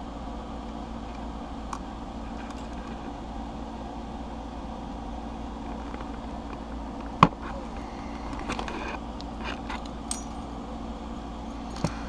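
Lock cutters snapping through the metal extension piece of a door-lock cylinder at one of its breakaway tabs: one sharp snap about seven seconds in, then a few light metal clicks as the pieces are handled, over a steady low hum.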